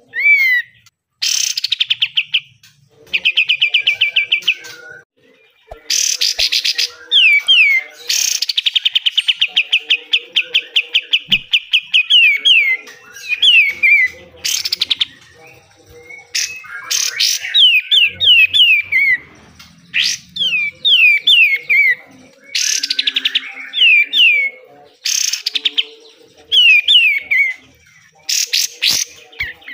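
Pied triller (kapas tembak) singing in its fast 'besetan' style: loud rapid trills of quickly repeated notes, some held for several seconds, alternating with short series of quick falling whistles and brief pauses.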